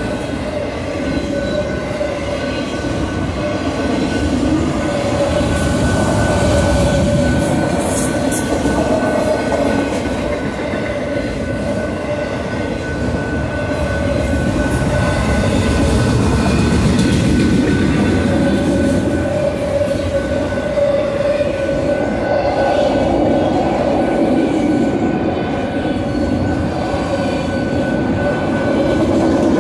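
Autorack freight cars rolling past on steel wheels: a steady rumble and clatter over the rail, with a steady high-pitched tone above it.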